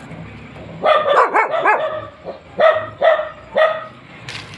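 Dog barking: a quick run of yelping barks about a second in, then three single barks about half a second apart.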